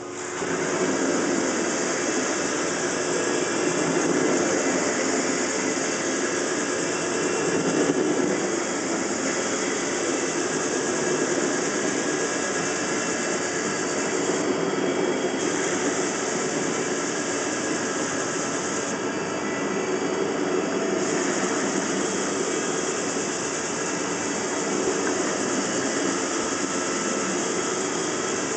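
Rotovac 360i rotary carpet-cleaning machine running over carpet: a loud, steady roar of the spinning head and the vacuum extraction through its hose. It starts about half a second in, and the high hiss briefly thins twice in the middle.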